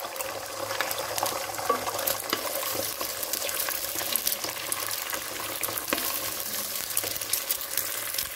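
Beaten egg sizzling and crackling in hot oil in a nonstick pan. Partway through, a wooden spatula stirs and scrapes as the egg is scrambled.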